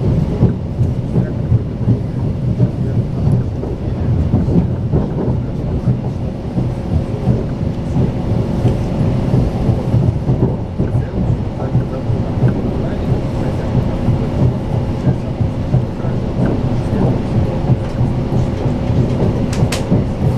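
Steady low rumble of a Strizh Talgo high-speed train running along the track, heard from inside the carriage, with a faint steady hum.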